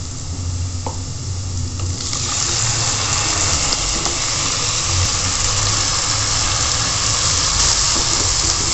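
Chopped onions sizzling in hot oil in a kadai; about two seconds in, wet curd-marinated chicken goes into the pan and the sizzle jumps to a loud, steady hiss that holds as it is stirred.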